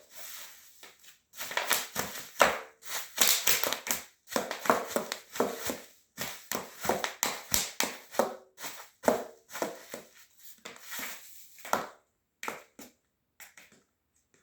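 Bubble wrap being crushed underfoot in high heels: dense runs of sharp pops and crackles, thinning to a few scattered pops about twelve seconds in.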